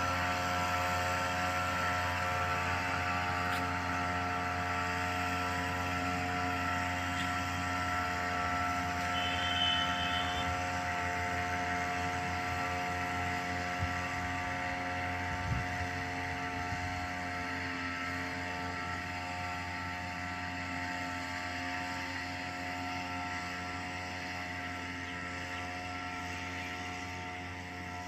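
Small engine of a backpack power sprayer running steadily, its carburetor freshly repaired, growing slightly fainter as the operator carries it away.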